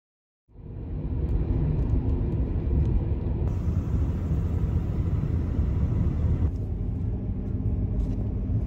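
Road and engine noise inside a Suzuki Hustler kei car's cabin while driving, a steady low rumble that starts about half a second in after a brief silence.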